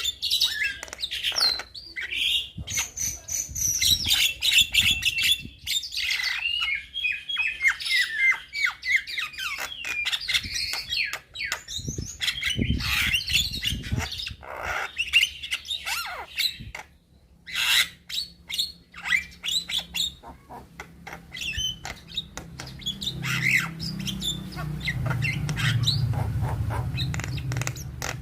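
Young Javan myna (jalak kebo) singing vigorously: a rapid, varied string of whistles, clicks and harsh squawking calls. A low hum comes in during the last few seconds.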